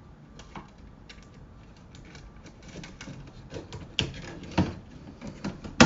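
Plastic clicking and light rattling as a battery is fitted into a smoke alarm's battery compartment, with a few sharper clicks in the last two seconds, the loudest right at the end.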